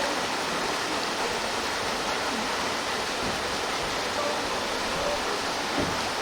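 Steady rushing of a waterfall, water pouring into a valley pool.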